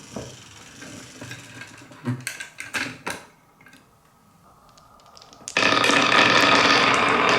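Marbles rolling and clacking along a wooden marble run, with scattered knocks in the first three seconds. From about five and a half seconds in comes a loud, steady rattle of marbles running down the wooden track.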